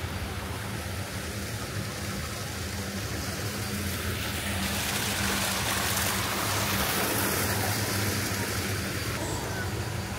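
A steady low engine hum, with a rushing noise that swells for about four seconds in the middle.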